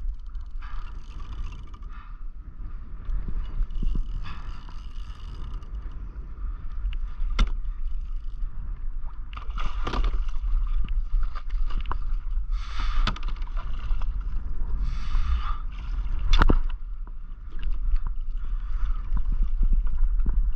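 Water splashing and sloshing against a plastic kayak's hull as a hooked yellowfin tuna is worked alongside, over a steady low rumble. There are a few sharp knocks, the loudest about 16 seconds in.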